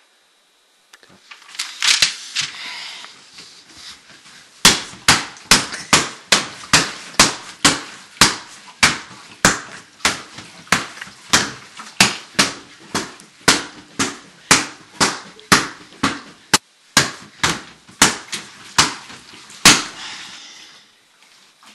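Fists pounding a freestanding punching bag in a rapid, steady series of blows, about two to three a second, starting about five seconds in and stopping near the end.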